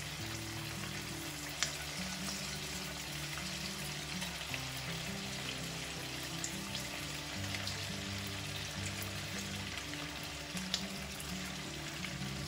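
Potato and semolina cutlets deep-frying in hot oil in a wok: a steady sizzling hiss with a couple of sharp pops, over soft background music.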